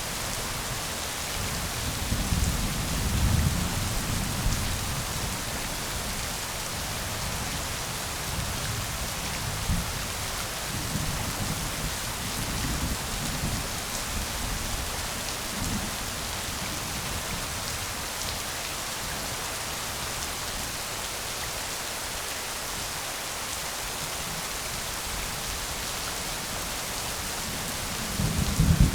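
Steady rain hissing, with low rumbles of thunder rolling in: the strongest a couple of seconds in, fainter ones in the middle, and another loud roll near the end.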